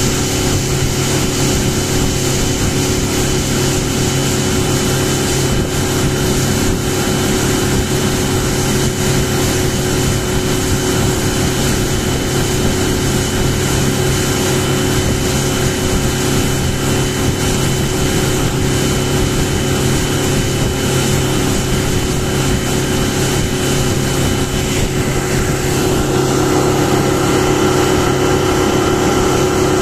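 A 115-horsepower outboard motor driving a boat at steady cruising speed, its even engine note over a rush of water and wind. About 26 seconds in, the engine note grows a little louder and changes.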